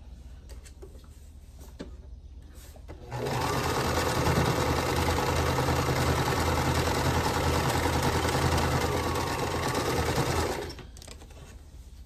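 Singer Start domestic sewing machine stitching a seam, running at a steady speed for about seven seconds; it starts about three seconds in and stops a little before the end.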